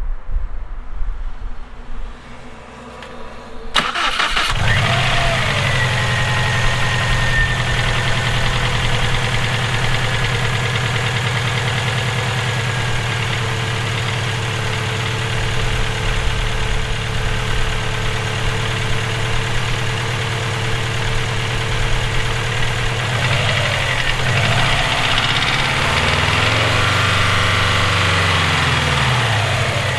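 Subaru EJ257 turbocharged 2.5-litre flat-four engine starting about four seconds in and then idling steadily, the engine its owner suspects of rod knock. Near the end the revs rise and fall back once.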